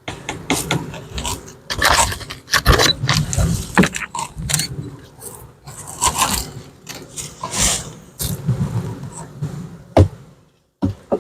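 Irregular scraping and sharp knocks from beehive equipment being handled.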